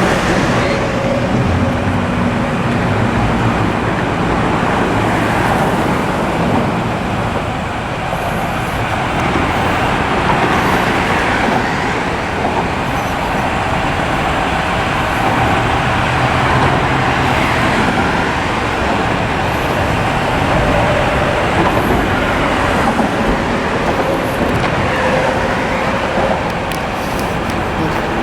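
Heavy diesel sand trucks running, a steady, loud engine noise that holds without a break.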